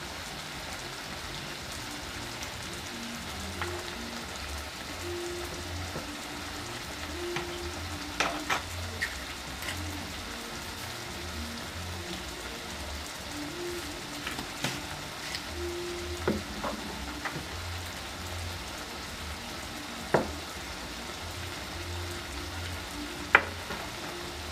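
Meat, tomatoes and vegetables sizzling steadily in a frying pan on a gas burner, with a few sharp clicks and knocks scattered through.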